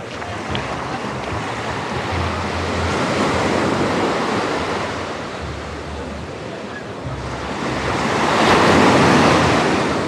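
Small ocean waves breaking and washing up the sand at the shoreline, the surf swelling twice, the second surge near the end the louder.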